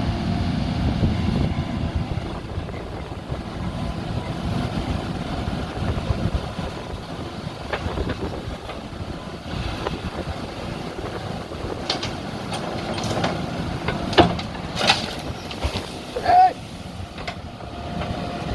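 Diesel engine of a JCB backhoe loader running steadily under work, with several sharp metallic knocks in the second half and a brief high squeal near the end.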